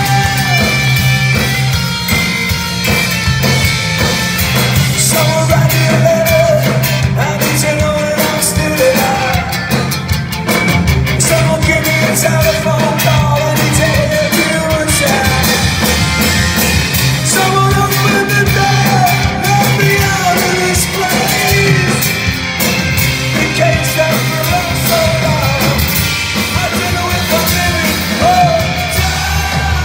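A live rock band playing loudly: a singer's voice over electric guitar, bass and drums with a steady beat.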